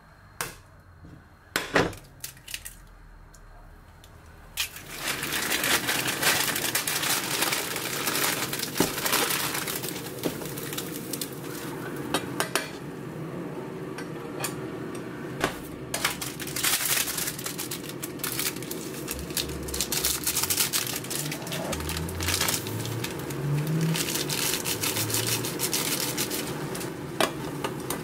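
Pots and utensils clattering and clinking as Chapagetti instant jjajang noodles are cooked on the stove. A steady rushing noise starts about five seconds in and runs under the clinks.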